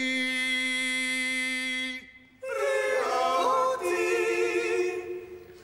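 Male choir singing a cappella. One long steady note is held for about two seconds and breaks off briefly. Then several voices sing a chord with vibrato, which fades away near the end.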